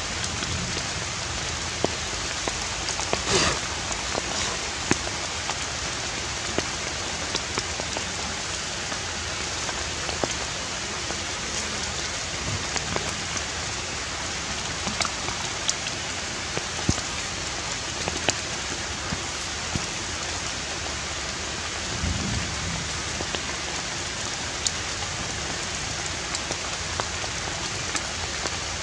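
Steady even outdoor hiss, rain-like, with many small scattered ticks and clicks and a brief louder rustle about three seconds in.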